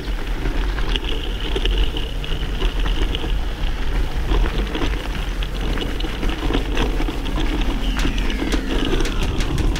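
Mountain bike rolling over a gravel dirt road: tyres crunching and the bike rattling with many small clicks, over a steady low rumble of wind on the camera's microphone.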